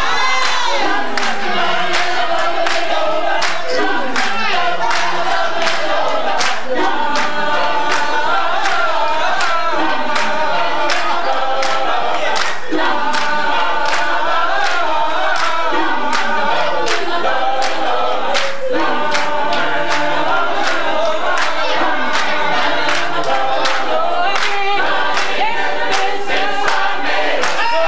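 Gospel choir singing, with steady rhythmic hand claps on the beat, about two a second.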